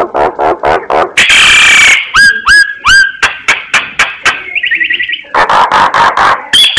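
Myna (black myna) singing a varied song: quick runs of clicks, harsh rasping screeches, short rising whistles and a rapid trill, ending on a held high whistle.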